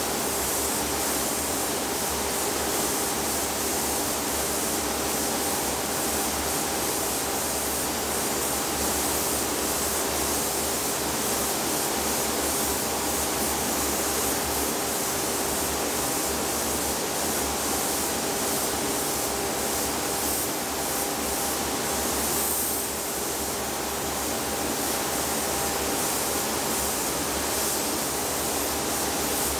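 Gravity-feed paint spray gun hissing steadily as it sprays clear coat onto a plastic car grille, with a faint steady hum underneath. The hiss drops briefly about three-quarters of the way through.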